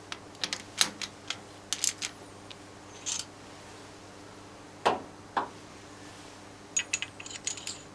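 Sharp metallic clicks and knocks from a lathe's four-jaw chuck being adjusted by hand with a T-handle chuck key, as a valve is trued in the chuck against a dial indicator. Several quick clicks come in the first two seconds, two duller knocks about five seconds in, and a short cluster of clicks near the end.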